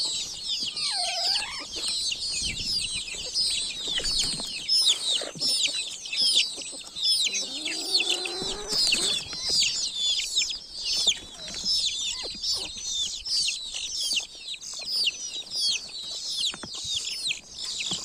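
A brood of baby chicks peeping constantly in many overlapping high-pitched chirps. A hen gives a lower call about a second in and clucks again around the middle.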